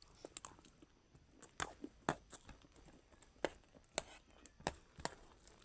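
Scattered soft clicks and crunches, about a dozen at irregular intervals, from eating chatpat, a crunchy puffed-rice snack, by hand or spoon from a plate.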